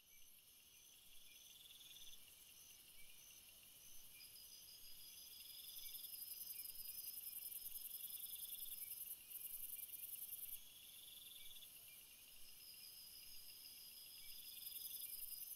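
Faint insect chorus: several insects chirping in pulsed trills at different high pitches, overlapping and coming and going, over a steady high buzz.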